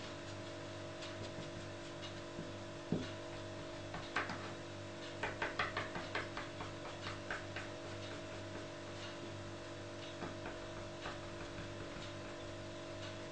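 Light taps and rubbing as a tissue dabs a small paper cutout against a cutting mat, with a quick run of taps about four to seven seconds in. A steady hum runs underneath.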